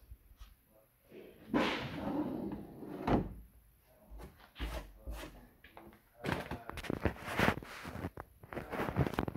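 A wooden cabinet drawer sliding open for about a second and a half and stopping with a knock, then a run of clicks and knocks as the drawer is handled.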